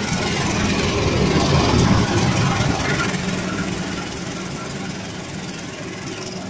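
CC 204 diesel-electric locomotive running past at close range, its engine loudest about two seconds in and then fading as the coaches roll by.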